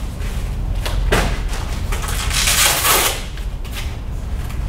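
Hook-and-loop strap of a wrist weight being ripped open: a short tearing noise about a second in, then a longer, louder tear about two and a half seconds in.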